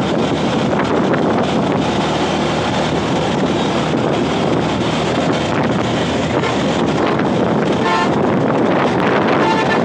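Wind rushing over the microphone of a motorcycle riding at speed, with steady engine and road noise underneath, and two brief tones near the end.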